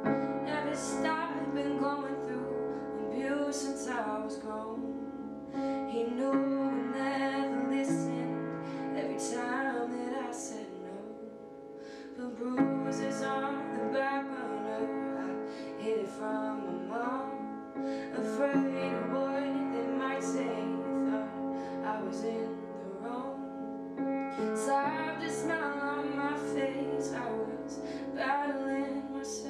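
A woman singing a slow song to her own upright piano accompaniment, held chords changing every few seconds under the voice.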